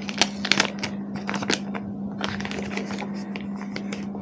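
A new drone controller's plastic wrap and label being peeled and handled: a run of small crackles and clicks, with a steady low hum underneath.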